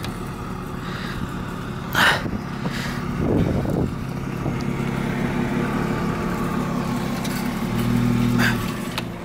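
Car engine idling steadily, with a sharp knock about two seconds in and softer handling sounds as a small backup camera is pressed into place.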